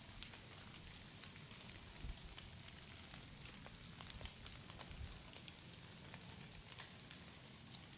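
Faint irregular crackling and ticking over a soft outdoor hiss, with soft low bumps about two and five seconds in.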